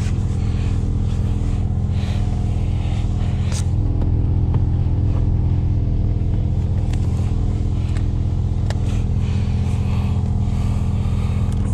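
Mazda RX-7's big-turbo rotary engine idling steadily, heard from inside the cabin, with a few light clicks as the seatbelt is pulled across and buckled.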